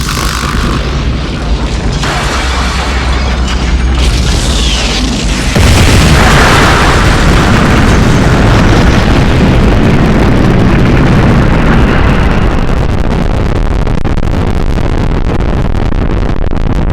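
Sound effect of a huge explosion. Loud rushing noise gives way, about five and a half seconds in, to a sudden louder blast that carries on as a long, continuous deep rumble.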